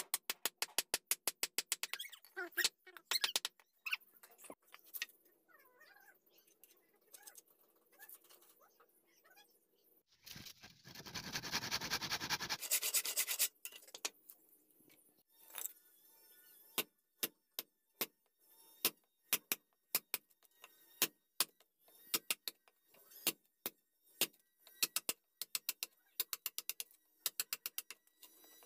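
Hand chisel being struck to carve a wooden block, giving sharp wooden knocks: a rapid run of about six taps a second at first, then slower, spaced strikes through the rest. About ten seconds in, a rough scraping noise lasts about two seconds and is the loudest sound.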